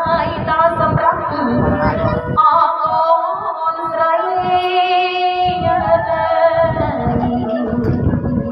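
A woman singing a Khmer wedding song through a microphone, with a bowed tro (Khmer two-string fiddle) and a drum. The drumbeats drop out for a few seconds mid-way while the voice and fiddle hold long, wavering notes.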